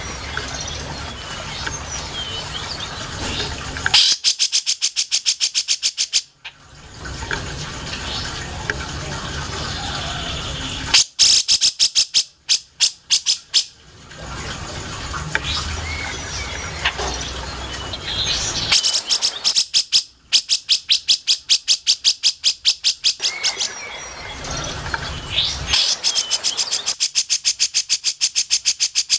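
Cucak jenggot (grey-cheeked bulbul) song played as a masteran: four loud bouts of rapid harsh chattering, about five or six notes a second, with short faint chirps between them.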